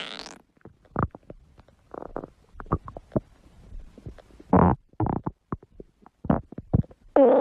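Stomach growling: a string of short gurgles and pops, with a longer gurgle about halfway through and a louder, long growl starting near the end.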